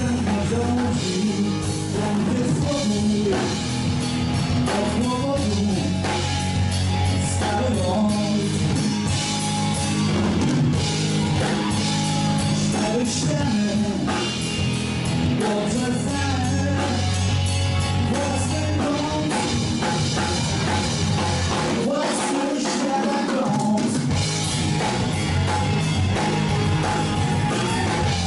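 Blues-rock band playing a song with singing, drums and a strong bass line; the bass drops out for about two seconds near the end.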